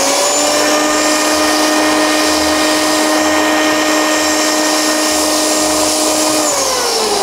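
Euromill 50-litre electric grain mill's 1.3 kW high-speed motor running with a steady whine; about six and a half seconds in it is switched off and winds down, the pitch falling.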